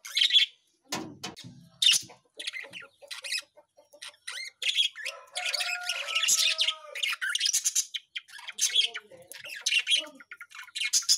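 Pet budgerigars and a white Java sparrow chirping and chattering: a stream of short, high chirps and squawks, densest about halfway through.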